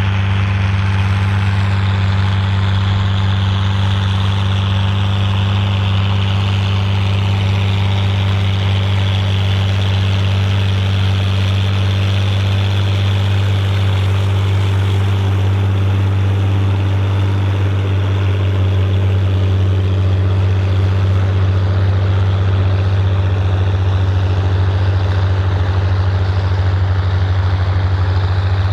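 Volvo BM 810 Turbo tractor's turbo diesel engine running steadily under load while pulling a six-furrow plough, a deep, even engine note.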